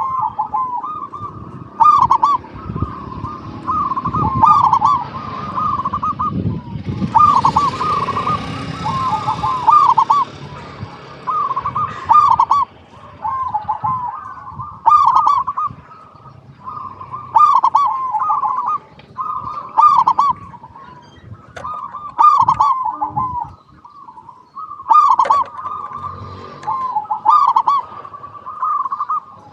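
Zebra dove (perkutut) singing: a rolling cooing phrase repeated over and over, about one every two and a half seconds. A few seconds of rushing noise comes in about seven seconds in.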